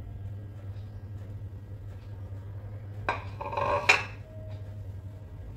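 A ceramic plate being set down on a kitchen counter: a brief clatter about three seconds in, ending in one sharp clink. A steady low hum runs underneath.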